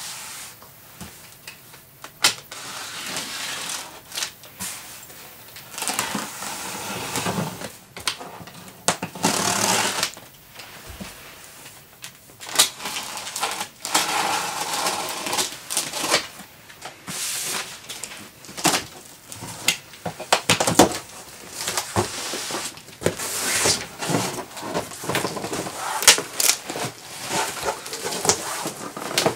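Box cutter slicing through packing tape on a large corrugated cardboard box, with short tearing rasps of tape and cardboard mixed with many sharp clicks and knocks as the box is handled. Near the end the cardboard flaps are pulled open.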